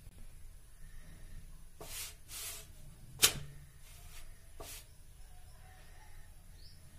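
Fingers pressing and sliding a thin rolled dough sheet on a hot tawa: several soft brushing swishes and one sharp click about three seconds in.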